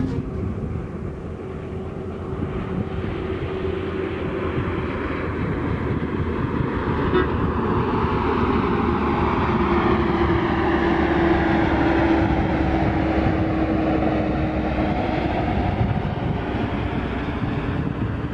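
Coach bus passing on an open road: engine and tyre noise swell to their loudest near the middle, then fade away, with a slowly falling tone as it moves off.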